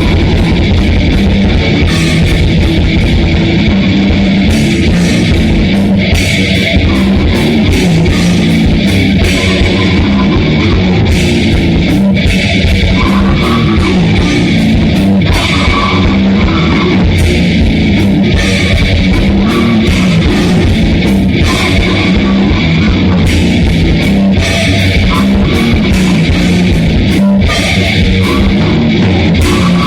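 Grindcore band playing in rehearsal: loud distorted guitars and bass over fast, dense drumming with constant cymbal hits, played without a break.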